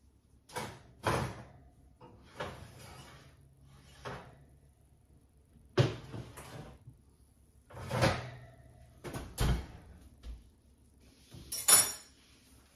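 Kitchen clatter of a cake pan being taken out of the oven: about ten separate knocks and clanks from the oven rack, the metal pan set on the stovetop and the oven door shutting, with a sharp ringing metallic clang near the end.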